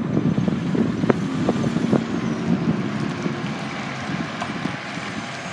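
Fire department aerial ladder truck driving past without siren, its diesel engine and tyres fading steadily as it moves away, with a few sharp knocks and rattles in the first couple of seconds.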